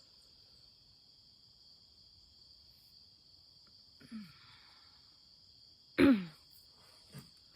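Insects chirring in one steady high hum throughout. A person sighs twice with falling pitch, briefly about four seconds in and much louder at six seconds.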